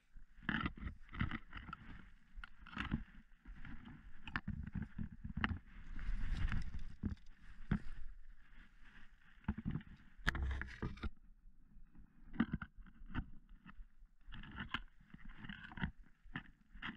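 Footsteps through tall grass, with grass blades brushing and rustling against legs and gear in an irregular rhythm.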